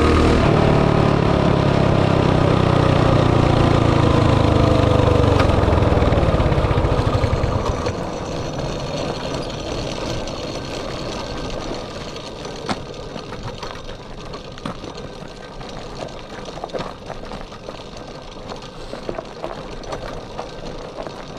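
Mini bike's small single-cylinder engine running hard, its revs falling steadily as the bike slows. About eight seconds in the engine sound drops away sharply, leaving a quieter rumble with scattered ticks as the bike rolls on.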